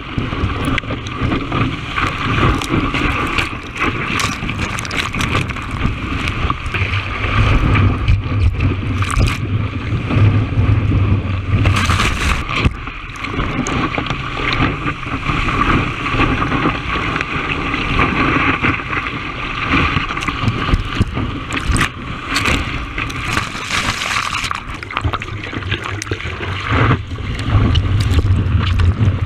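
Surf water rushing and splashing over a surfboard as it rides a wave, with wind buffeting the board-mounted camera's microphone in a continuous rush; the low wind rumble swells a few seconds in and again near the end.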